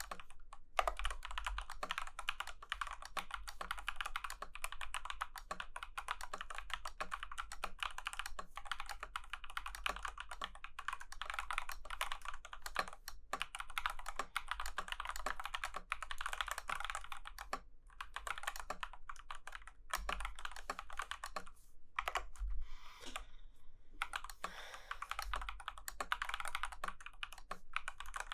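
Typing on a Womier Retro M87 mechanical keyboard: a fast, continuous run of key clacks with a few brief pauses.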